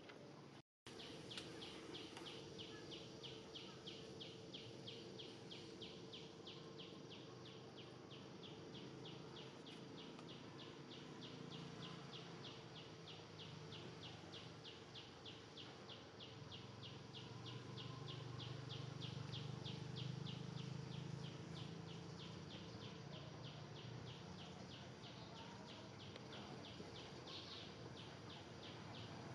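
An insect calling in a long, even train of short high pulses, repeated several times a second, with a faint low hum beneath.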